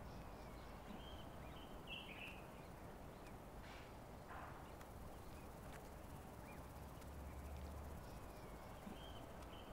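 Faint outdoor ambience with a few short bird chirps, the clearest about two seconds in and another near the end, and a couple of soft taps about four seconds in.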